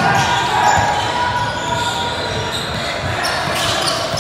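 Basketball game sounds in a gym: a basketball bouncing on the court amid scattered voices from players and spectators.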